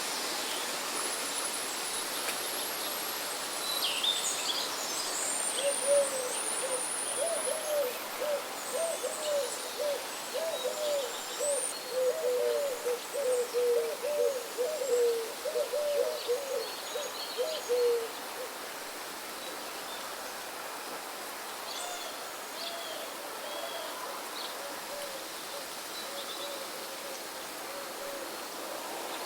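Forest birdsong: a long series of low hooting notes, about two a second, louder through the middle and returning fainter near the end, with high thin whistles and chirps from other birds early on, over a steady hiss.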